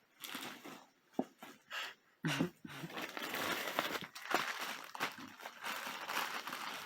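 Plastic packaging crinkling and rustling steadily as a pack of yarn is handled while someone looks for its opening, with a brief vocal sound about two seconds in.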